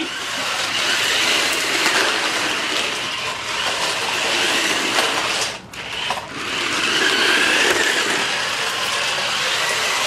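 Small electric drive motors and gearboxes of Kid Galaxy Morphibians remote-control toy cars whirring steadily as they drive, dropping out briefly a little past halfway.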